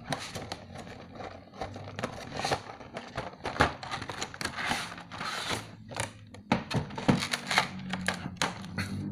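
Cardboard figure box being opened by hand and a clear plastic blister tray slid out: irregular clicks, taps and plastic crinkling, with a denser scraping stretch around the middle.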